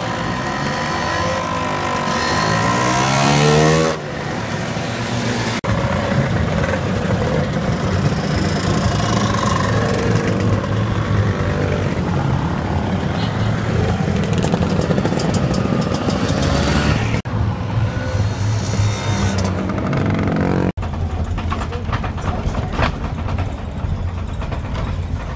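Many scooter engines running as a stream of scooters rides past. Early on, one revs up hard with a steeply rising pitch. The sound breaks off abruptly several times and starts again.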